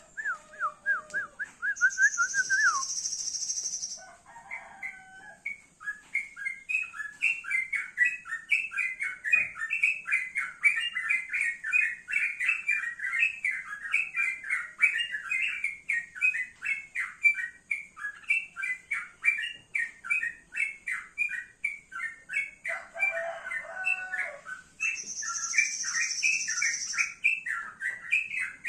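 Male yellow-vented bulbul singing: a quick trill of falling notes at the start, then a long run of rapid chattering notes. Twice, a high hissing buzz lasts about two seconds.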